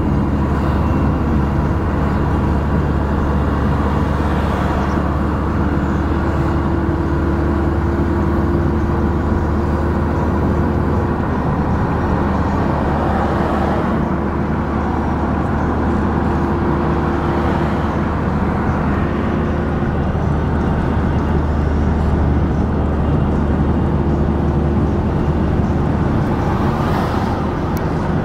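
Steady car cabin noise while driving: low engine and road rumble with a faint steady hum that fades in and out now and then.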